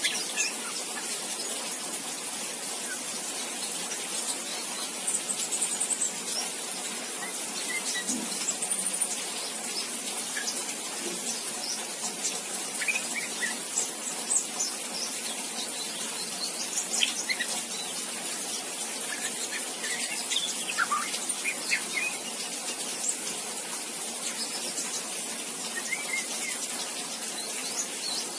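Juvenile white-rumped shama, about two and a half months old, practising its early subsong (riwik): scattered short, soft chirps and twitters at irregular intervals over a steady hiss.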